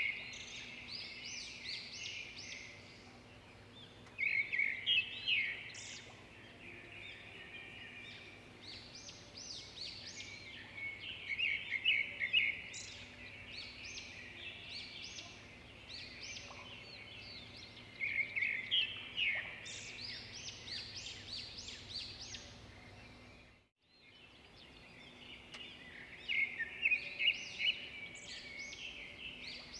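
Birds chirping and singing in clusters every few seconds over a faint steady hum, with a moment's silence about three-quarters of the way through.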